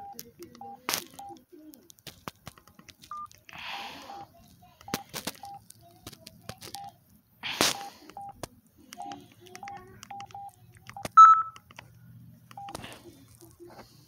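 Samsung SGH-A117 flip phone's keypad beeping as its buttons are pressed to move through the menus: short, same-pitched beeps at an uneven pace, one per key press, with a few sharp clicks and rustles. About eleven seconds in comes a single louder, higher beep.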